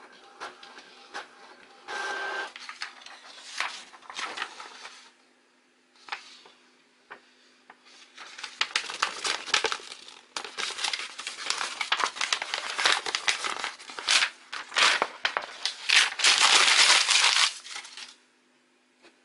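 A sheet of printer paper rustling and then being crumpled into a ball by hand, crinkling loudly from about eight seconds in until it stops abruptly near the end. Softer rustling and a short pitched sound come earlier, about two seconds in.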